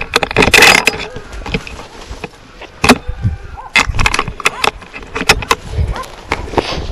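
Dry brush and reeds rustling and crackling with irregular sharp knocks as a hunter pushes quickly through the vegetation, the gun-mounted camera jolting and knocking against the shotgun.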